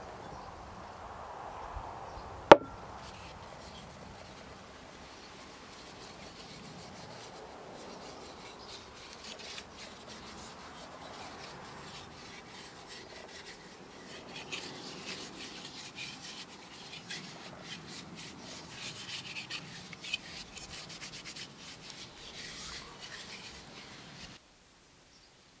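Hand sanding of a wooden saw handle with sandpaper, taking off the top layer of the wood: continuous rubbing and scratching strokes, which grow busier in the second half. One sharp knock about two and a half seconds in, and the sound cuts off suddenly near the end.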